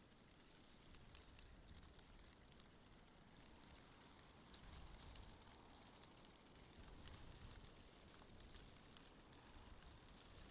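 Faint wind, a low rumble that swells in gusts, with light scattered ticking and crackling over it.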